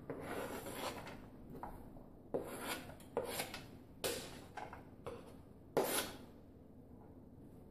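Diced onion being scraped by hand off a plastic cutting board into a dry nonstick frying pan: a series of short rubbing scrapes, the strongest one about six seconds in.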